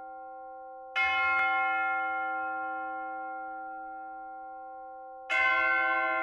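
Deep bell chimes, struck twice, each ringing on and slowly fading, as a slideshow's backing track.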